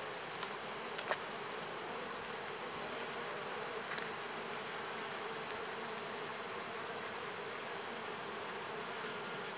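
Honeybee colony buzzing steadily from an open hive while a bee-covered frame is lifted out, with a few faint clicks.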